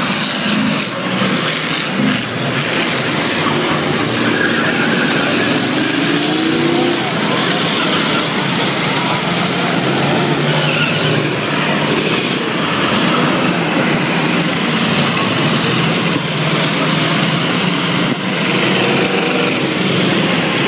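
Engines of several race cars running hard as they lap a short oval track, heard from the grandstand, with a pitch glide as a car accelerates about four to seven seconds in.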